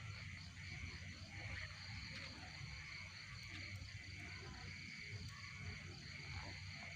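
Night insects, crickets, chirping in a steady pulsing chorus over a low rumble.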